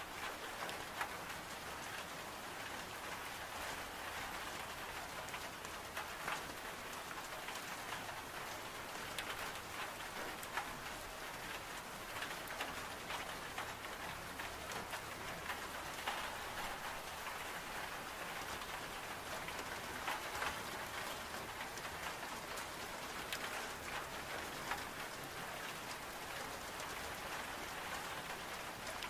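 Steady heavy rain falling on window glass, mixed with a wood stove's fire crackling in frequent small sharp snaps.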